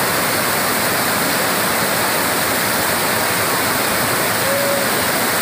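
White water rushing over a wide series of rock ledges at a cascading waterfall: a loud, steady, unbroken rush.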